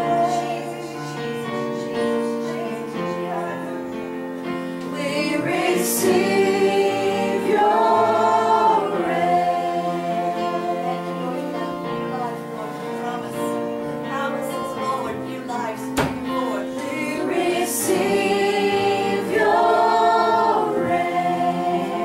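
A group of voices singing a slow gospel worship song in long held notes, swelling louder twice.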